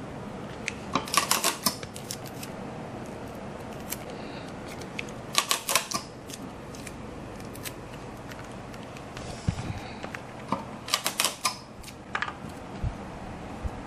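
Hand work on a model: three quick bursts of sharp clicks and snips, about a second in, five seconds in and eleven seconds in, over a steady low room hum.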